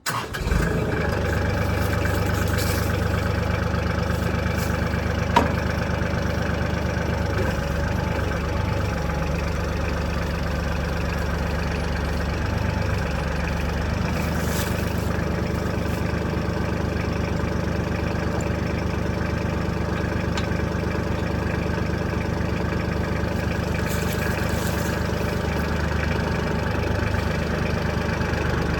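Kubota tractor's diesel engine starting, catching right at the start and then idling steadily. A single sharp click sounds about five seconds in.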